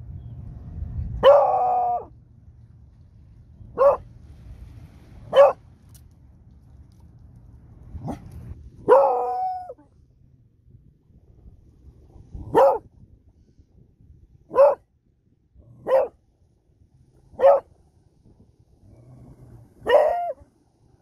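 Beagle baying: about ten loud calls, roughly one every one to two seconds. Most are short barks, and a few are drawn out into brief falling howls, raised as an alert at something unexpected.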